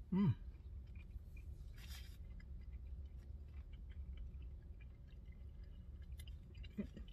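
A short 'mm' at the very start, then quiet chewing as a cherry from a milkshake's whipped-cream topping is eaten, with faint mouth clicks over a steady low hum inside a parked car.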